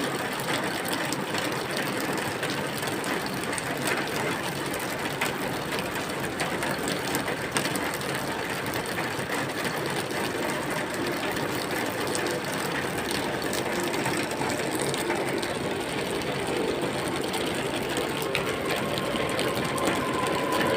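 Rain falling steadily, a dense even patter of many fine drops.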